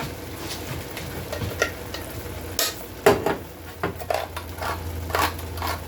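Metal kitchen utensils clattering and knocking, with a sharper knock about three seconds in, over food sizzling in a pan. A low steady hum comes in at about the same time.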